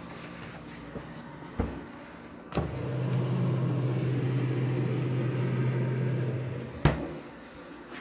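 Two knocks, then a steady low electric hum that starts suddenly and runs for about four seconds before stopping with a sharp knock.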